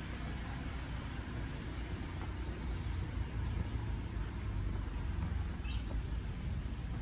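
Steady low outdoor rumble, such as distant traffic or wind on the microphone, with a brief high chirp near the end.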